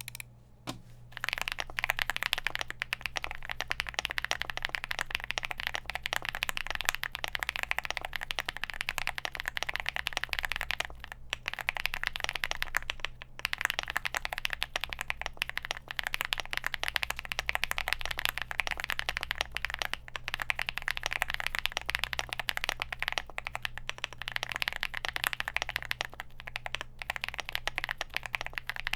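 Typing on a Leobog Hi75 aluminum gasket-mounted mechanical keyboard with factory-lubed Gateron Quinn tactile switches, a polycarbonate plate, foam and tape mods, and PBT keycaps. It is a dense, fast run of key clacks starting about a second in, with a couple of short pauses.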